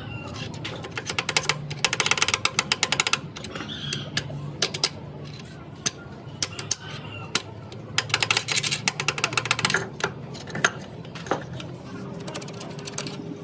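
Rapid metallic clicking in two runs of a couple of seconds each, with scattered single clicks between: tool work on a Caterpillar diesel engine under repair.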